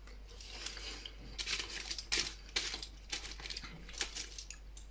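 Eating with a fork: a run of light clicks and taps, clustered several to a second.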